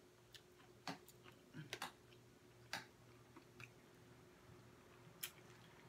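Crispy fried KFC hot wing being torn apart and chewed: a handful of separate sharp crunches and crackles, faint overall.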